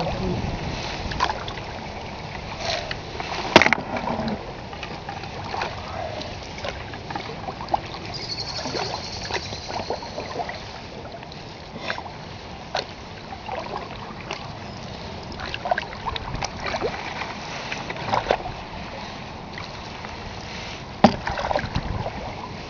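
Open canoe being paddled on a fast-flowing river: paddle strokes splashing and water lapping and trickling along the hull, with irregular light knocks and drips. The sharpest knock comes about three and a half seconds in, another near the end.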